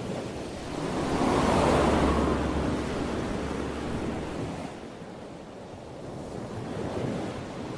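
A rush of noise like surf or wind that swells over the first two seconds and then slowly fades, with a low steady hum beneath it through the first half.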